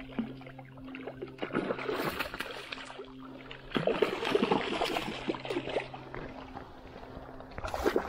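Water splashing and sloshing in two spells, the first about a second and a half in and a longer one from about four to six seconds, over a steady low hum.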